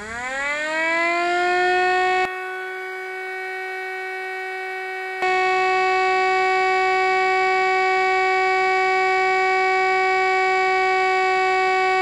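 Miniature 3D-printed Federal Signal STL-10 siren, driven by a small 130-size DC motor, winding up in a rising wail and then holding a steady tone: the all-clear signal. Its level drops for about three seconds starting about two seconds in, then comes back.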